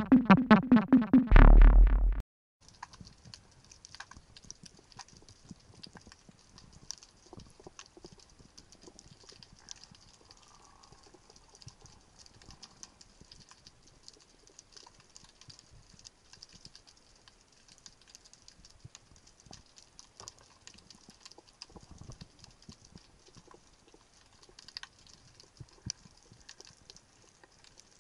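Loud intro music with deep drum hits, cut off abruptly about two seconds in. Then faint underwater ambience through a camera housing: a constant crackle of fine clicks, typical of a rocky reef, with a few louder clicks and low knocks.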